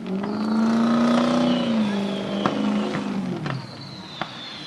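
A motor vehicle's engine passing close by, its pitch holding then dropping as it goes away over about three and a half seconds. A faint high falling whistle and a few sharp firework cracks sound behind it.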